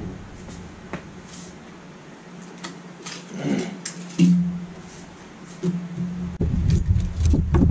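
Scattered clicks and knocks of hands working on an open desktop PC test bench as the CPU is being swapped, thickest near the end, with a low hum coming and going.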